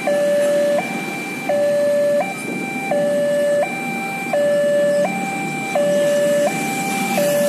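Railway level-crossing warning alarm sounding a two-tone hi-lo signal, each tone held about 0.7 s, warning road traffic that a train is approaching and the barrier is down. Motorcycle and road-traffic noise runs underneath.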